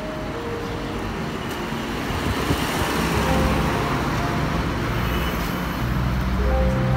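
Street traffic noise with a motor vehicle's engine running close by, growing louder from about three seconds in.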